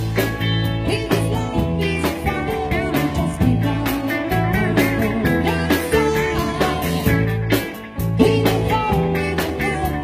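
Live band playing an upbeat rock number on drum kit, guitars and keyboard, with a voice singing over it.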